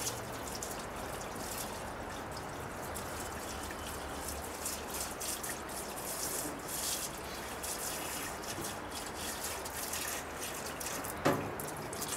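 Liquid trickling from a plastic jug into a stainless-steel vapor phase soldering tank, pouring steadily with a single knock near the end.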